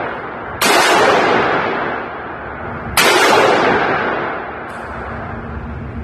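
Two rifle shots from an AR-15-style rifle, a little over two seconds apart, each a sharp crack followed by a long echo that dies away down an indoor shooting range.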